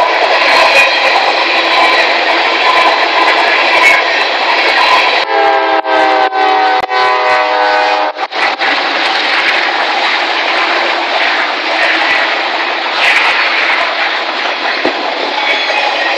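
Norfolk Southern freight train passing: the steady rumble and rattle of rolling freight cars. About five seconds in, a diesel locomotive's air horn sounds for about three seconds, broken by a few brief gaps, then the car noise carries on.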